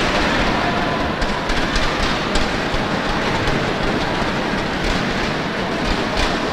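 Steady crowd noise filling an indoor sports hall, with a few scattered sharp clicks or claps.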